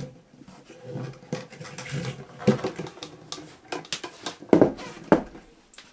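Irregular knocks and clatter of an IKEA Lack side table's legs being swung out on 3D-printed hinges and the table turned over, with sharper thumps about two and a half seconds in and twice more near the end.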